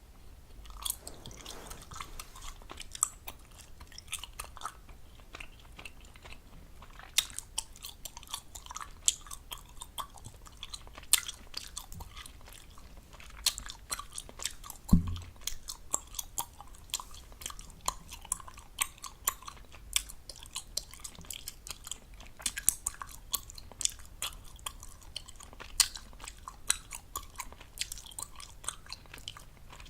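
Gum chewed fast right at the microphone: wet smacking and clicking with frequent sharp gum pops, irregular throughout, and one heavier low thump about halfway through.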